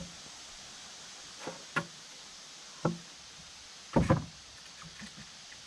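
About five irregular wooden knocks as rough-cut boards are worked against the outhouse's round posts. The loudest come as a close pair about four seconds in.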